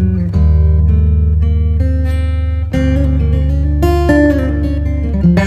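Background music: a melody of changing sustained notes over a steady bass line.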